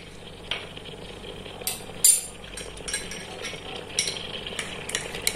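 A few light clicks and clinks of spoons against a metal cooking pot, over a faint steady sizzle from the ground raisin mixture cooking in it.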